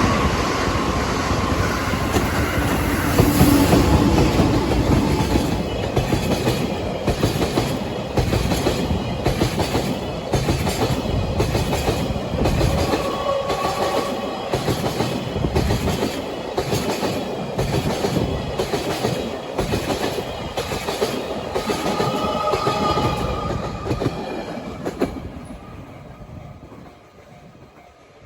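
A long freight train's wheels pounding over rail joints as the train passes, a loud, rapid, evenly repeated clatter. It fades away over the last few seconds as the train clears.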